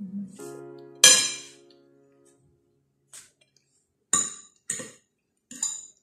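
Fork and knife clinking against a plate while cutting roast chicken: one loud ringing clink about a second in, then a few lighter clicks near the end. Soft piano background music underneath.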